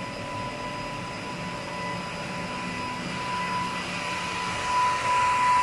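F586HC high-speed edge banding machine running: a steady high whine over a hiss from its motors and cutting units. The hiss grows louder near the end.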